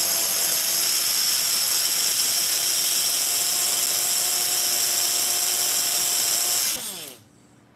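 Battery-powered electric tobacco grinder spinning its blade in an empty clear cup: a steady, high-pitched whirring motor at full speed. About seven seconds in it is switched off and winds down with a falling pitch.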